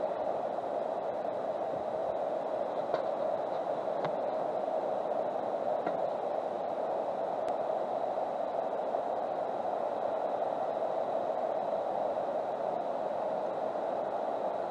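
Steady, even background noise with no distinct events, and a faint high whine over it.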